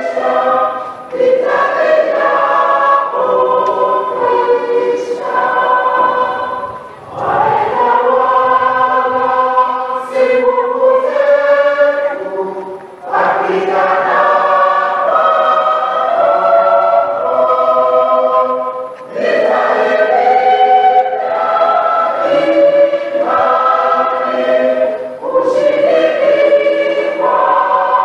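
Large church choir singing a hymn in harmony, in phrases of several seconds with short breaks between them.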